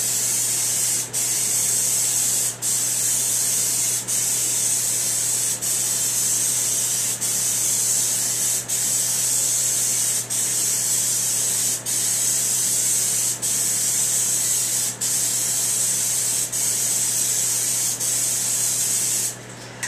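Aerosol spray can of John Deere Blitz Black paint hissing in long passes, breaking off for a moment about every second and a half between strokes while a heavy coat goes on. The spraying stops just before the end.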